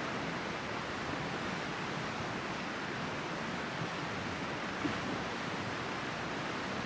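River water rushing steadily, an even unbroken wash of flowing water with one faint short knock about five seconds in.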